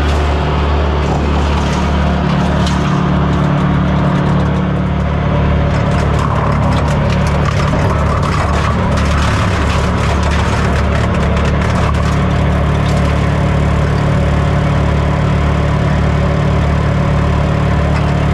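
Kubota V3600T turbo diesel on a disc wood chipper running steadily at a constant speed. From about six seconds in to about thirteen seconds in, a rattling crackle of many quick clicks sits over the engine.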